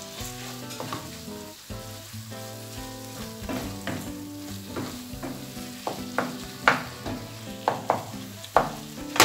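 Minced chicken and beef sizzling in a tomato and onion mixture in a nonstick frying pan as a wooden spoon stirs and breaks up the meat. In the second half the spoon knocks and scrapes sharply against the pan several times.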